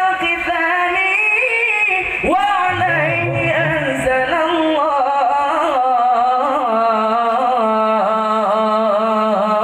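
Young male voices singing a sholawat (Islamic devotional song) through microphones, the lead voice wavering in melismatic runs. A low steady held note joins about seven and a half seconds in.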